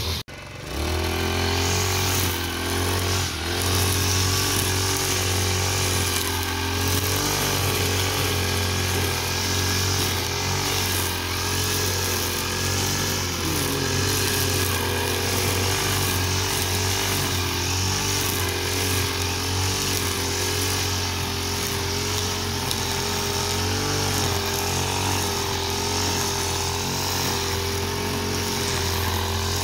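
Backpack petrol brush cutter running steadily at high speed, its trimmer line cutting grass, the engine's pitch wavering slightly. The sound cuts out for a moment right at the start, then carries on.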